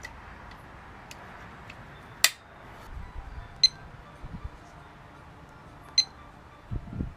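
A sharp click, then two short high electronic beeps a little over two seconds apart, with a few soft handling knocks.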